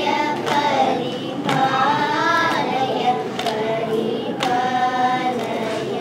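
A group of children singing a Carnatic song in unison over the steady hum of an electronic shruti box drone, with short sharp claps keeping the tala about every second and a half.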